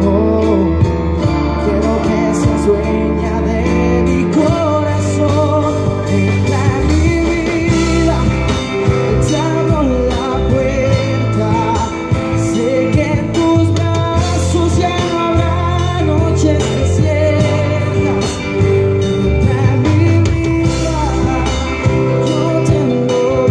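Live band playing a pop ballad cover: steady bass and drums under a wavering melody line, with singing at times.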